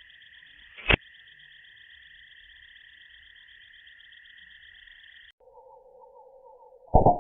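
Two sharp shots from a PCP air rifle, about six seconds apart, the second with a short ringing tail. They sound over a steady, high, finely trilling chorus that drops abruptly to a lower pitch a little after five seconds in.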